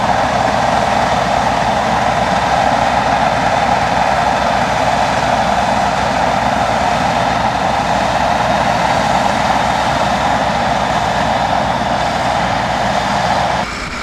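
Heavy military diesel engine running steadily at constant speed under load during a winch recovery of a bogged armoured vehicle, a loud unbroken drone that drops away abruptly near the end.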